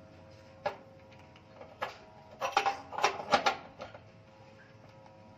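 Metal hand tool clicking and clacking against a water heater's heating-element fitting as the new element is tightened: a couple of single clicks, then a quick run of clacks.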